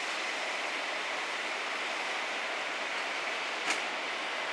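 Steady hiss of an Airbus A330-300's GE CF6-80E1A3 turbofans at taxi idle, with one sharp click near the end.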